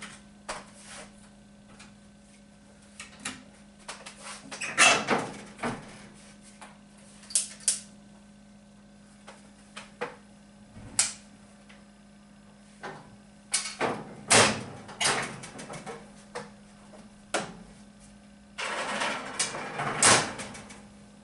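Metal clanks and knocks from an old gas cook stove's oven door and rack as a baking pan is put in and the door shut, with a steady low hum underneath. A longer, louder noisy stretch comes near the end.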